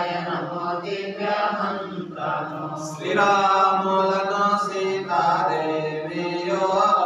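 A group of devotees, men and women together, chanting a Telugu devotional recitation to Rama in unison, in sung phrases with a long held note in the middle.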